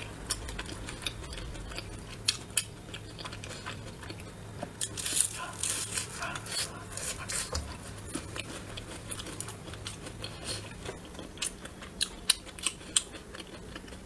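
Close-miked eating sounds: irregular wet clicks and smacks of biting and chewing on braised meat, over a faint steady low hum.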